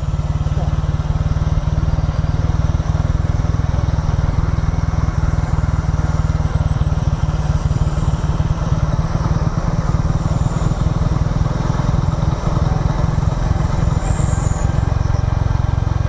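Motorcycle engine running steadily while the bike cruises along a paved road, its low, even drone unbroken.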